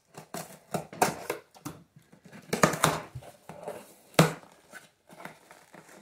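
Scissors slicing through packing tape along a cardboard box, then the cardboard flaps pulled open and pressed flat: a run of short scraping, rustling strokes with a sharp knock a little after the middle.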